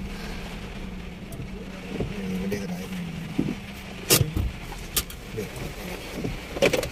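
Small car's cabin while driving slowly: a steady low engine and road hum, with three sharp clicks or knocks, the loudest about four seconds in, one about a second later and one near the end.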